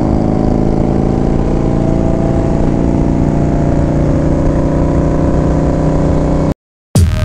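Indian FTR motorcycle's V-twin engine running steadily at highway cruising speed, heard from on the bike. It cuts off abruptly near the end, and after a brief gap electronic music starts.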